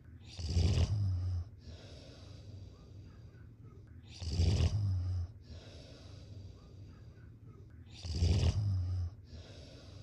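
Snoring: three loud, rumbling snores about four seconds apart, each lasting about a second, with quieter breathing between them.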